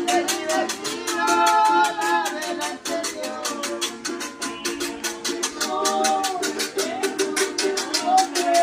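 Voices singing a traditional Christmas song (aguinaldo) over strummed string instruments, with maracas shaken in a steady quick rhythm.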